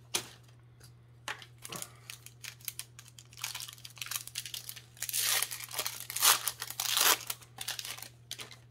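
Card packaging being torn open and crinkled by hand, with a few light clicks from handling. The tearing comes in two stretches: a short one about three and a half seconds in, and a longer, louder one from about five to seven seconds.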